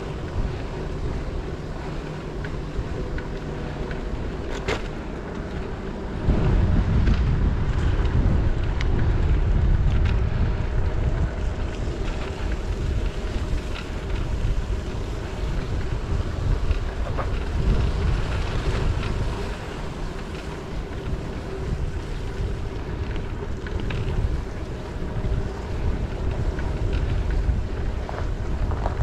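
Wind buffeting the microphone of a head-mounted GoPro while cycling, a steady rushing rumble that gets louder about six seconds in.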